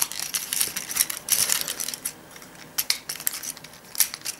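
Hard plastic parts of a Transformers Prime Deluxe Ratchet action figure clicking and rattling as its legs and feet are unfolded during transformation: scattered sharp clicks with light scraping, a little quieter in the middle.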